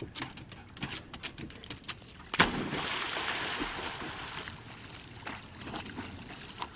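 A husky plunges off a wooden dock into the lake with a loud splash about two and a half seconds in, followed by a couple of seconds of splashing that fades as it swims. Before the jump there is a run of light clicks and taps.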